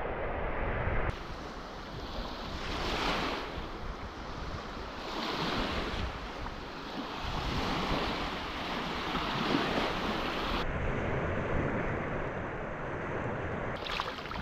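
Choppy lake water washing onto a sand and stone beach, small waves breaking and swelling every couple of seconds, with wind buffeting the microphone.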